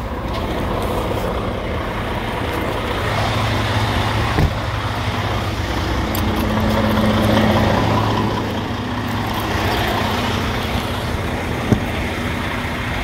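Heavy diesel truck idling, a steady low hum from inside the cab. Two sharp clicks, about four seconds in and near the end.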